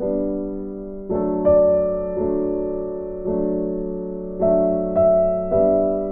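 Background piano music: slow chords struck about once a second, each left to ring and fade before the next.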